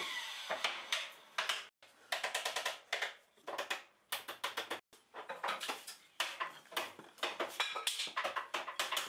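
Wooden discs knocking and clattering against each other as they are handled and slotted together: dense, rapid clicks and short ringing knocks, broken twice by abrupt cuts to silence.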